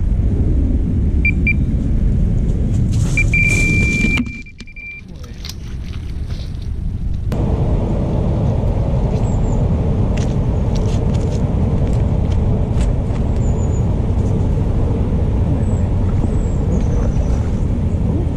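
Wind buffeting the microphone, a loud steady low rumble that drops away sharply about four seconds in and builds back over the next three. A thin high electronic-sounding tone comes in briefly, two short pips and then a longer note of about two seconds, and a few faint high bird chirps are heard later.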